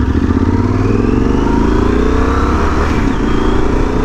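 Yamaha Super Tenere's 1200 cc parallel-twin engine accelerating as the motorcycle is ridden. Its note rises, dips briefly about three seconds in, then rises again.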